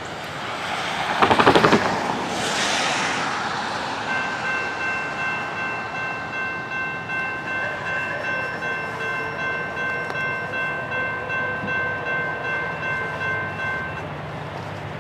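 A brief loud rattling burst about a second in. Then a distant locomotive horn, a Nathan P5 chime on Norfolk Southern EMD SD70ACC #1806, sounds one long held chord of about ten seconds with a slight throb before cutting off.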